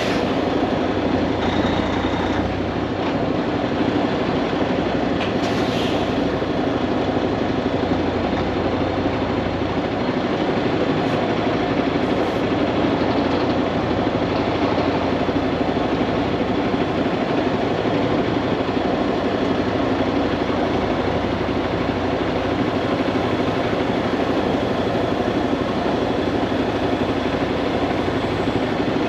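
Steady running noise of a Kenworth W900 semi truck, an even engine rumble and hum with no change throughout.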